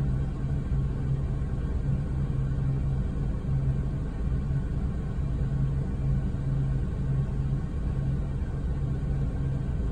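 Steady low rumble with a low hum that keeps breaking off and coming back.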